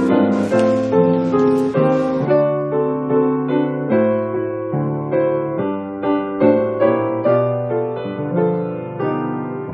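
Background piano music: a gentle tune of notes struck about twice a second. A light hiss fades out about two seconds in.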